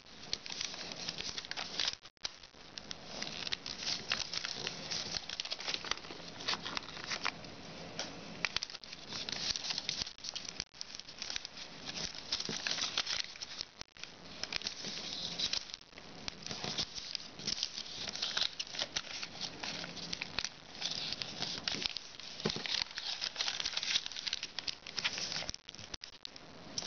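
Foil origami paper crinkling and crackling as it is fan-folded into pleats and each crease is pressed flat by hand: a dense run of small crackles with a few short breaks.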